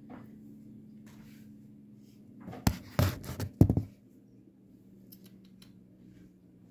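Virginia opossum chewing dry food, with faint ticks of munching and a short run of loud crunches about three seconds in.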